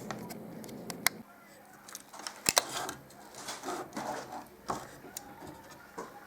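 Scattered sharp clicks and knocks with brief handling noise as the side panels of a car stereo's casing are pried and popped off.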